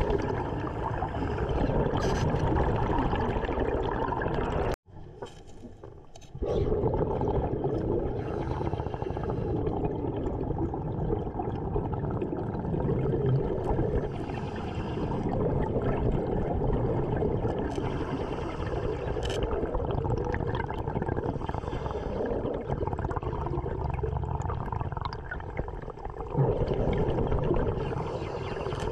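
Underwater sound of a diver's breathing gear: air rushing and exhaled bubbles gurgling, swelling and easing every few seconds. About five seconds in it cuts out abruptly for a second and a half.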